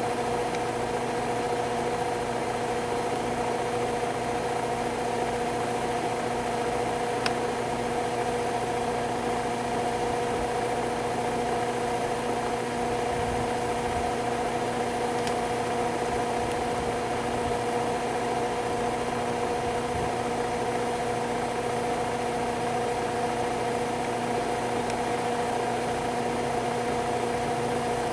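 A steady mechanical hum made of several constant tones, like a motor running without change.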